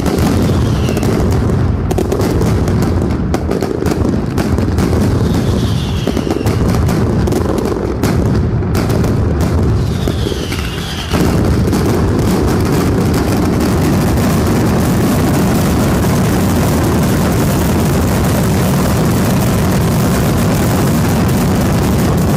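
Mascletà firecrackers detonating in a dense, unbroken barrage of bangs, with a few short falling whistles over the top. The barrage steps up to an even louder, thicker volley about halfway through.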